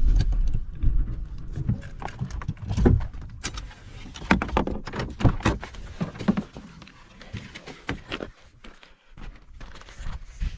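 Footsteps walking, irregular steps and scuffs.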